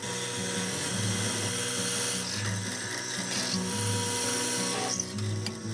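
Drill press running with a Forstner bit boring into hardwood: a steady hiss of cutting over the motor's hum, which drops away about five seconds in. Background music with a repeating bass line plays underneath.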